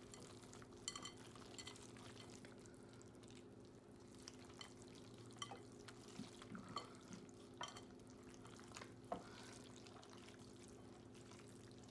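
Faint, soft squishing and small ticks of hands working egg into cornbread dressing in a bowl, over a steady low hum.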